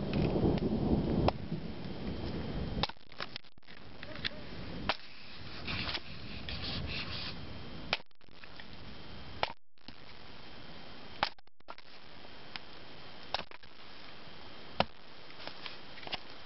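Thunder rumbling for the first few seconds, then dying away, leaving a quiet background with sharp, irregular cracks and snaps.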